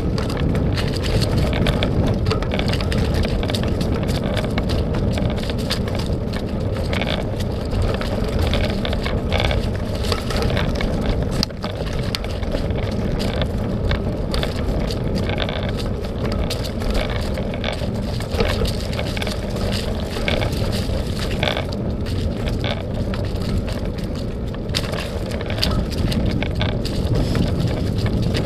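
Bicycle being ridden along a dirt trail: a steady low rumble of the tyres rolling over the ground, with frequent small clicks and rattles from the bike.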